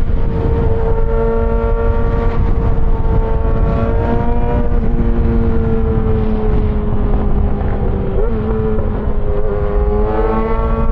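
Yamaha XJ6 S inline-four with an SC-Project exhaust, running at fairly steady riding revs. The pitch eases down slowly through the middle and climbs again near the end, under heavy wind noise on the microphone.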